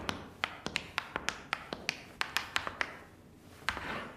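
Hard-soled shoes clicking on a tiled floor in quick, irregular steps: a rapid run of sharp taps for about three seconds, then a few fainter ones.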